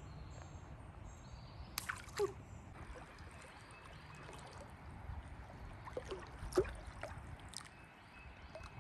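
Shallow river water trickling and lapping around a wading angler, with a few short splashes about two seconds in and again past the middle.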